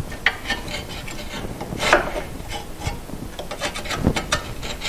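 Shift linkage parts of a VW Cabriolet being handled and fitted together by hand: irregular light clicks and knocks, with some rubbing between them.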